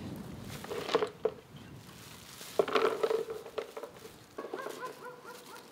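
Black olives and olive leaves being handled by hand while sorting: leaves rustling and olives clattering, in a few short bursts about a second in and again about three seconds in.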